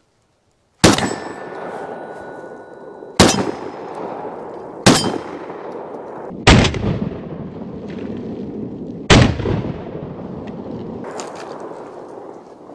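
Five shots from a Citadel Bosshog 12-gauge semi-automatic shotgun firing cheap low-brass Estate 00 buckshot, about one and a half to two and a half seconds apart, each followed by a long echo. The first shots set a steel target ringing. The gun cycles all five rounds without a malfunction.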